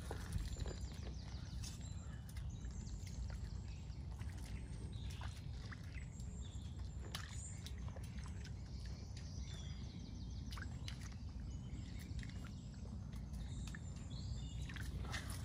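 Outdoor ambience: a steady low rumble with scattered sharp clicks and pops, and faint short bird chirps now and then.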